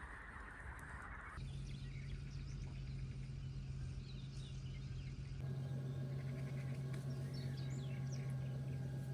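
Small birds chirping at the riverside, with a steady low hum underneath. A steady high-pitched hiss fills the first second or so, then cuts off.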